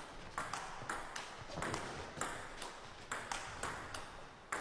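Table tennis rally: the celluloid-type ball clicking sharply off the paddles and the table, about two hits a second in an even back-and-forth rhythm.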